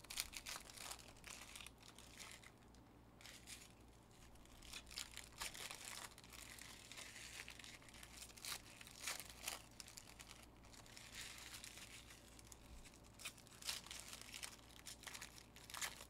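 Foil wrappers of Panini Optic football hobby packs being torn open and crumpled by hand: faint, irregular crackling and tearing.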